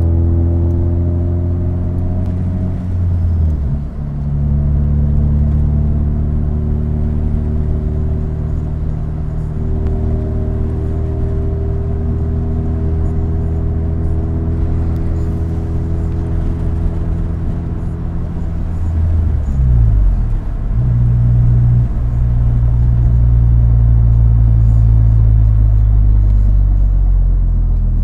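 1994 Honda Accord's four-cylinder engine running steadily. Its pitch drops about three seconds in, then dips and recovers around twenty seconds in.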